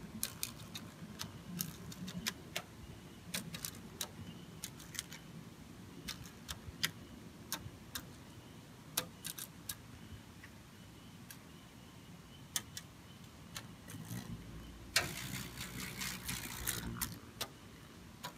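Large beetles slamming into a window screen: sharp, irregular ticks and taps, a few a second. A louder burst of noise lasting about two seconds comes near the end.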